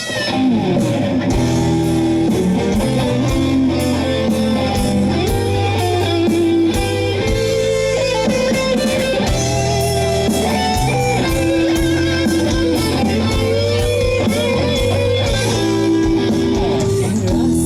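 Live rock band playing an instrumental passage: an electric guitar lead line over bass guitar and a steady drum beat.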